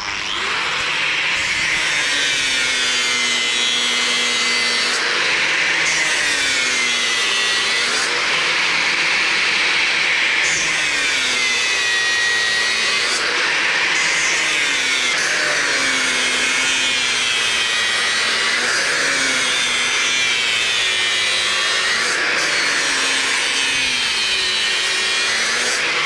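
A grinder grinding down the steel face of an anvil to level out chisel marks and wear. It runs continuously, its pitch sagging and recovering about every two seconds as it is swept back and forth under load.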